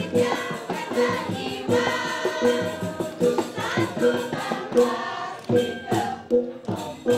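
A group of women singing a cheer song together in unison over music with a steady beat.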